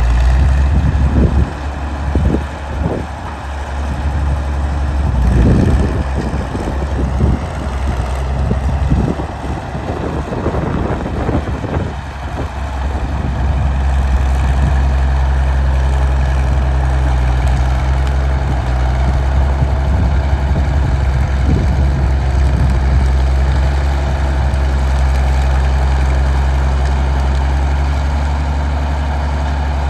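Diesel engine of a 1952 Caterpillar D6-9U bulldozer running with a steady low drone. Through the first half there are irregular knocks and crackles over the engine, then it settles to a steady run.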